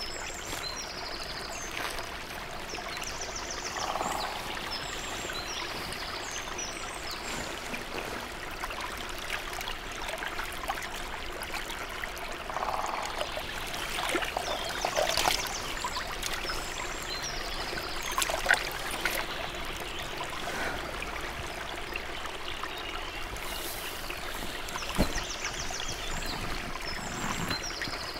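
A small woodland stream trickling steadily over moss and stones, with a few brief louder splashes in the middle as a hand dips into the water. Faint high bird chirps come near the start and again near the end.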